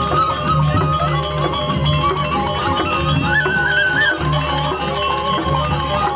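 Balinese gamelan playing: a long, wavering melody line held and stepping slowly down in pitch, with a brief higher phrase about three seconds in, over layered metallophone notes and a regular low pulse.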